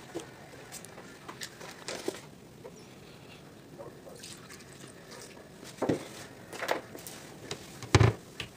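Light knocks and handling noises of food being put into and pressed down in a glass blender jar, with louder thumps about six seconds in and near the end.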